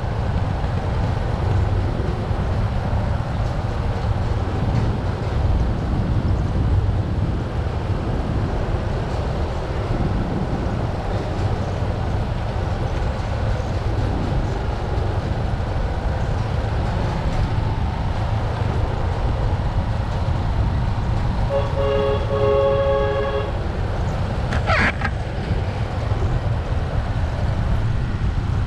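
Trail motorcycle engine running steadily at road speed with wind noise on the microphone. About two-thirds of the way through, a vehicle horn sounds one steady toot of nearly two seconds, followed a second later by a brief sharp high sound.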